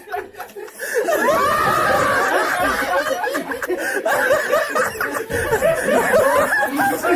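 Several men laughing hard and without a break, starting about a second in.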